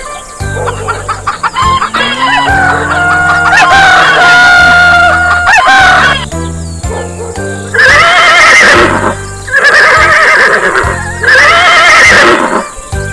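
Rooster crowing repeatedly: one long drawn-out crow, then three shorter loud crows in quick succession near the end, over background music.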